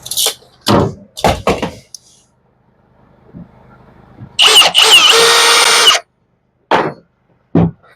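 A few handling knocks, then a small power tool runs for about a second and a half with a steady whine and stops suddenly, followed by two more knocks near the end.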